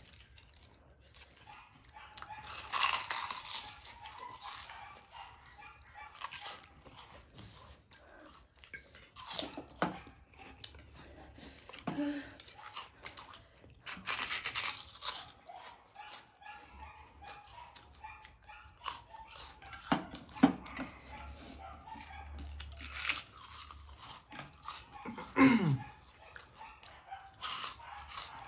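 Close-up eating sounds: chewing and crunching of food in irregular bursts. A short falling whine comes near the end.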